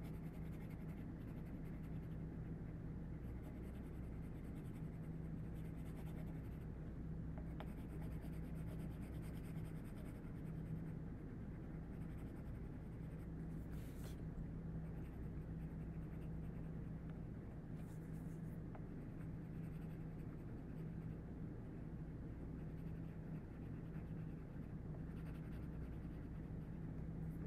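Pencil shading on a paper worksheet, with light pressure: a steady soft scratching of strokes going back and forth, over a steady low hum.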